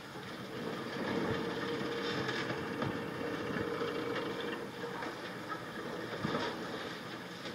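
A long-reach demolition excavator's hydraulic jaws crush reinforced concrete, its hydraulics giving a steady hum, with a few sharp cracks and knocks as concrete breaks.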